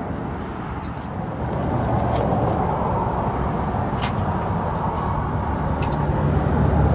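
A vehicle engine idling with a steady low hum that grows a little louder after the first second or so. A few light metallic clicks come from hitch hardware being handled at the truck's receiver.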